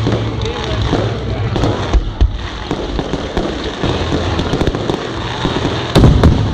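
Fireworks display going off: dense crackling from many small bursts, with a loud bang about two seconds in and a louder one near the end.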